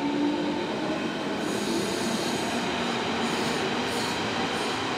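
Berlin S-Bahn electric train moving through the station: a steady rush of wheel and running noise with faint squealing tones and a few brief high hisses.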